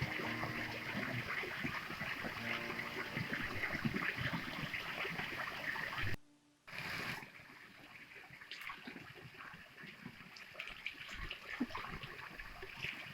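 Flowing stream water trickling and splashing over rocks. Louder for about the first six seconds, then it drops out briefly and continues more quietly.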